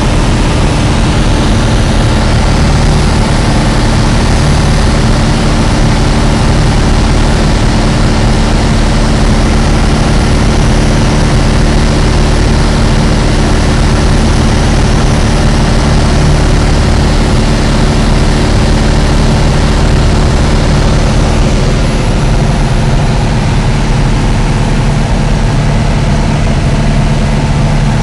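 Light aircraft's piston engine and propeller heard from inside the cockpit in flight: a loud, steady drone with airflow noise. There is no change in power.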